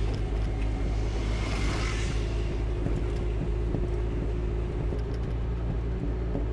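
A 1982 Chevrolet Chevette's freshly rebuilt 1.4-litre eight-valve four-cylinder engine running at a steady, even low drone while driving. About a second in there is a brief rush of higher noise.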